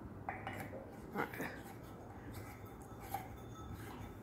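Scattered small clicks and glassy clinks as a light bulb is fitted into the light kit of a running Hampton Bay Brookhurst ceiling fan, over the fan's steady low hum.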